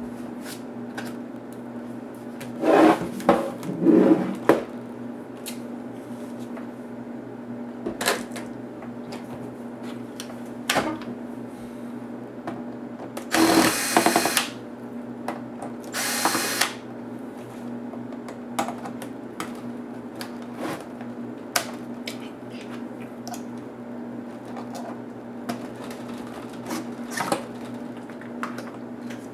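A cordless drill-driver runs in two short bursts, backing screws out of a laptop's plastic bottom case. Between the bursts come handling knocks and clatter of the plastic laptop and screws, loudest a few seconds in, over a steady low hum.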